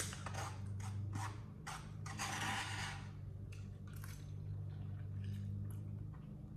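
Close-up mouth sounds of eating noodles: wet chewing and lip smacks, with a longer slurp about two seconds in, over a low steady hum.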